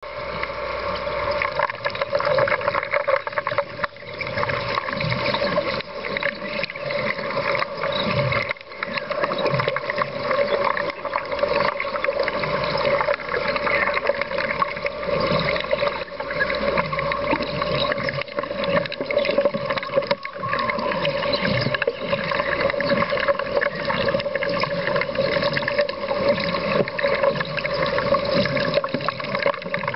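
Broco exothermic cutting rod burning underwater on oxygen: a steady, crackling, bubbling rush with a constant hum in it, dropping out briefly a few times.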